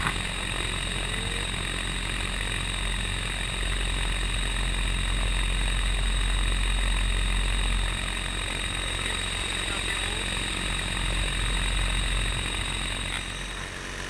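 Flytec HPD10 electric paraglider motor running in flight: a steady high electric whine over a low propeller rumble. About 13 seconds in, the whine cuts out and the sound drops a little.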